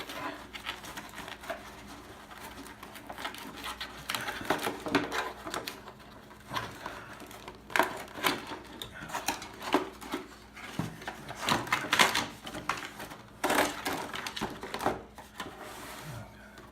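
Toy packaging being handled and opened: cardboard and plastic crackling and rustling, with irregular clicks and scrapes, busier and louder from about four seconds in.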